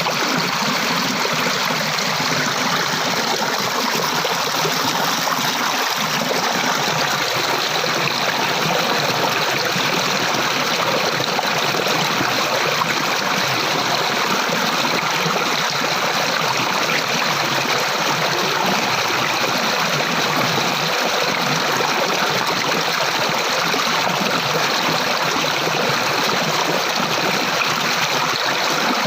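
Flowing water, a stream running steadily with an even rushing sound.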